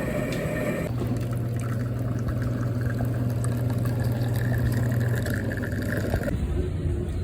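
Liquid being poured, over a steady low hum; the sound changes abruptly about a second in and again near the end.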